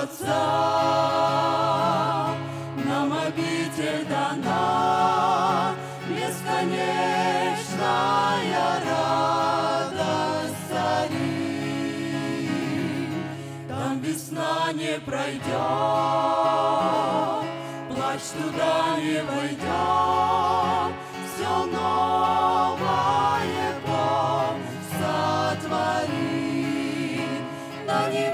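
Mixed group of women and men singing a gospel hymn together in harmony, long notes held with vibrato in phrases of a few seconds, over a steady instrumental backing.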